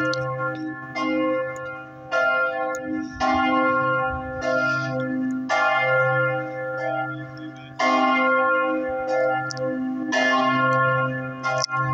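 Church bells of San Remigio swinging full circle in an Italian distesa peal. Several bells strike at uneven intervals of about one to one and a half seconds, each stroke ringing on into the next.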